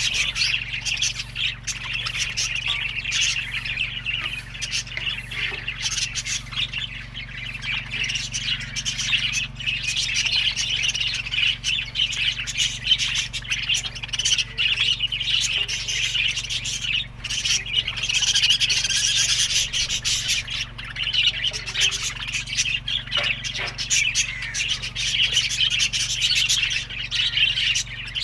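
A flock of budgerigars chattering and chirping without a break, with occasional squawks and a few sharp clicks, over a steady low hum.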